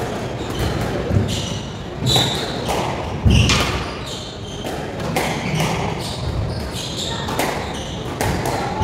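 Squash rally: the ball cracking off rackets and walls in a quick run of sharp hits, with shoes squeaking on the wooden court floor between them.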